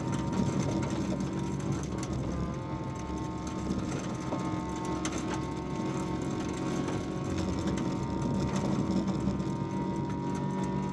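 VW Polo 1.4 16V rally car's four-cylinder engine running hard at fairly steady revs, heard from inside the stripped cabin, with scattered sharp knocks and rattles from the car on the gravel road.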